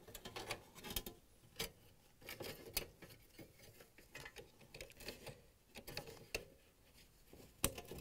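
Plastic wiring-harness connectors being handled and pushed onto a dishwasher's electronic control board by gloved hands: scattered light clicks and rustling, with one sharper click near the end.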